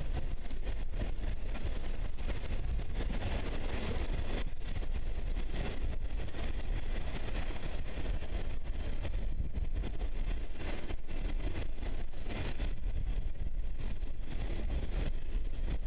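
Container freight train rolling across a steel trestle viaduct: a steady noise of wagon wheels on the rails, with wind buffeting the microphone.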